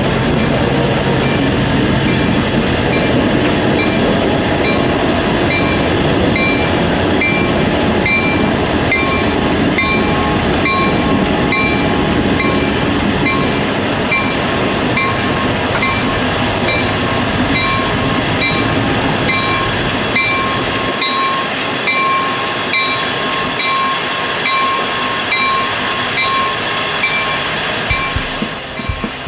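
Union Pacific diesel freight locomotives running with a bell ringing about one and a half times a second over a steady engine and rail rumble; the low rumble drops away about two-thirds of the way through while the ringing goes on.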